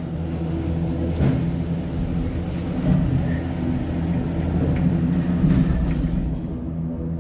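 Cable car cabin pulling out of the station: a steady low mechanical hum and rumble from the station's wheels and drive machinery, with a few light knocks.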